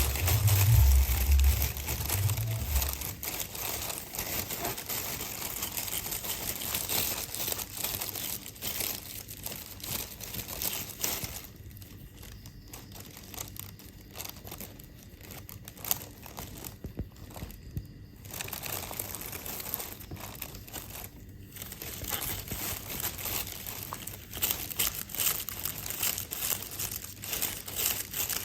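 Thin plastic bag crinkling and rustling as a cat moves about inside it, with a low rumble in the first few seconds. The crinkling eases off for a stretch in the middle, then picks up again.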